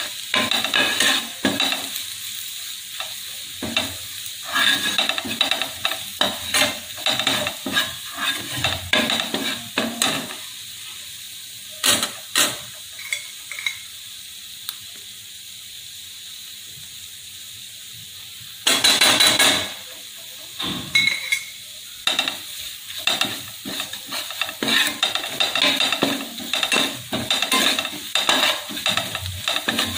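Onions and red chilli powder sizzling in oil in a nonstick frying pan, with a spoon stirring and scraping across the pan in quick strokes. The stirring pauses for a few seconds midway, leaving only the sizzle, then starts again with one louder scrape.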